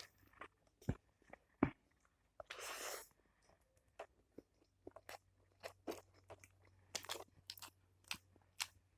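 Close-up chewing with irregular small crunches and clicks of food in the mouth, coming more often in the second half, with a short breathy rustle a few seconds in.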